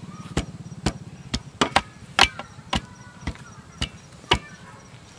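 A bamboo pole jabbed repeatedly into packed soil at the foot of a bamboo post, tamping it in. It gives sharp knocks about twice a second that stop about four and a half seconds in.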